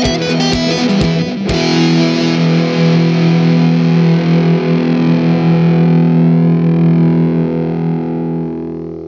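Outro rock music with distorted electric guitar: a rhythmic riff over a steady beat for about a second and a half, then one chord held, ringing and slowly fading out near the end.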